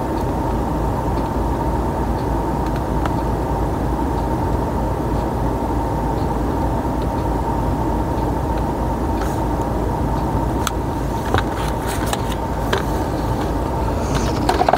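Truck engine running steadily with a low rumble and a steady whine, with a few sharp clicks and knocks in the last few seconds.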